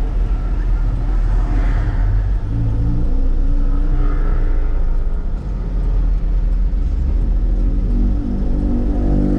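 Truck engine running, heard from inside the cab as the truck rolls slowly: a steady low rumble that settles into a more even note near the end.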